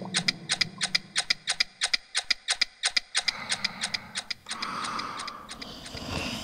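Rapid, even ticking, about six or seven ticks a second, fading out about four seconds in and giving way to a soft hiss.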